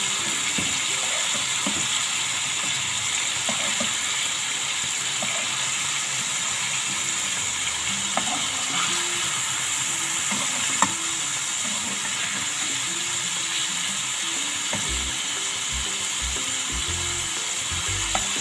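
Marinated chicken pieces sizzling steadily on high heat in a non-stick frying pan as their released juices cook off, with a metal slotted spatula scraping and clicking against the pan as the pieces are turned, and one sharper knock a little past halfway.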